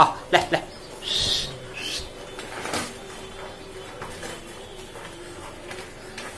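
A few short animal calls in the first two seconds or so, then a quieter, steady background.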